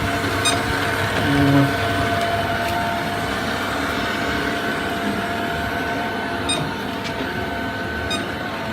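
Polaris PVCR 0826 robot vacuum running: a steady motor and brush hum with a few held whining tones.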